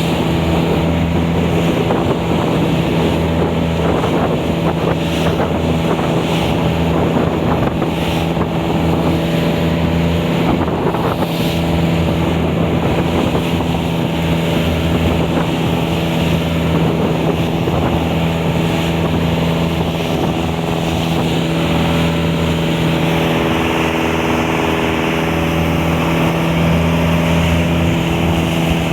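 Motorboat engine running at a steady speed, a constant droning hum over a steady rushing noise.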